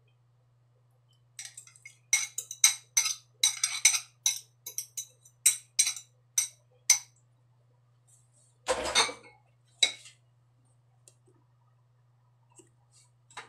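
A spoon clinking and scraping rapidly against ceramic bowls as beaten egg is scraped out over rice, a quick run of sharp clinks lasting several seconds. About nine seconds in comes a single louder, rustling knock.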